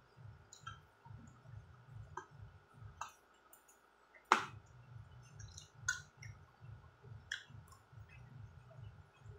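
Fork and spoon clicking and scraping on a ceramic plate while picking apart fried fish, with one sharp clink about four seconds in. Soft rhythmic chewing runs underneath and pauses briefly just before the clink.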